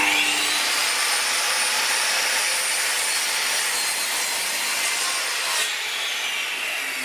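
Bosch GCM8SJL sliding mitre saw starting with a rising whine, then its blade cutting through a board of MDF. Near the end the sound changes suddenly as the cut finishes and the motor begins to wind down.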